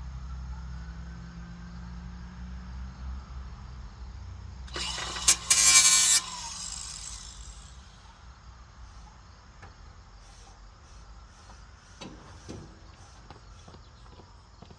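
A motor running with a steady low hum, cut across about five seconds in by a loud, hissing burst lasting about a second and a half. The hum stops as the burst ends, leaving a few faint clicks.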